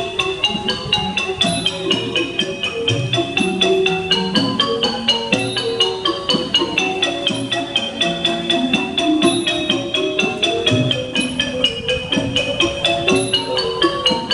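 Thai piphat ensemble music led by a xylophone (ranat). Rapid, even mallet strikes come about five a second, carrying a melody that rises and falls, over lower drum and gong tones.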